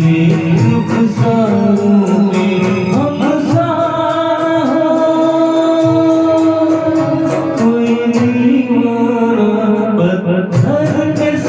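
A Hindi film song sung over a backing track, the voice holding long, sliding notes above a steady beat of about four strokes a second.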